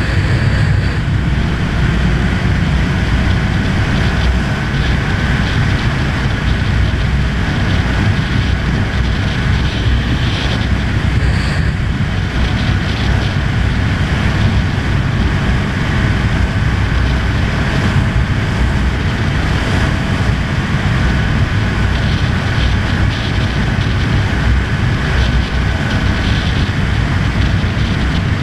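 Honda CB1000R's inline-four engine running steadily at road speed, mixed with wind rushing over the microphone as a heavy, even low rumble.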